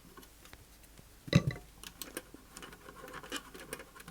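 A small screw being undone by the Ethernet port on the back of a Sky+ HD box: faint scraping and light clicks, with one sharper knock about a second and a half in.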